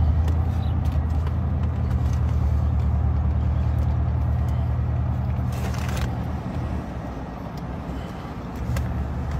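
Truck engine idling, a steady low hum heard from inside the cab. About halfway through there is a brief hiss, and there are a few faint clicks.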